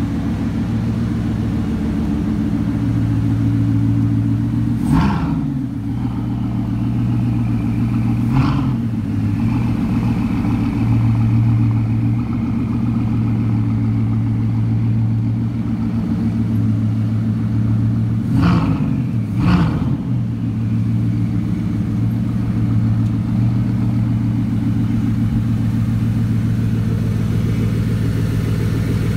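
Bugatti Veyron's quad-turbocharged W16 engine idling steadily through a custom stainless cat-back exhaust, with four short throttle blips: one about five seconds in, another a few seconds later, and two in quick succession a little past the middle.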